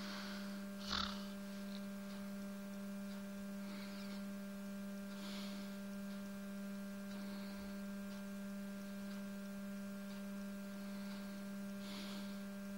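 A steady low hum of one pitch with overtones, a mysterious humming noise heard through a bedroom wall from the neighbouring house. A few faint short rustles sound over it.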